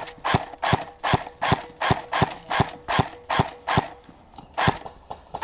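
Running footsteps thudding on the ground, about three steps a second, pausing near the end before one more step.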